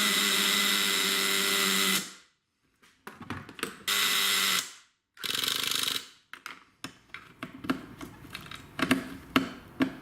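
Electric starter spinning a CXP 15 nitro RC engine in short bursts: a steady whirr for about two seconds that stops abruptly, then two shorter spins, as the engine is cranked without catching. Scattered clicks and knocks follow.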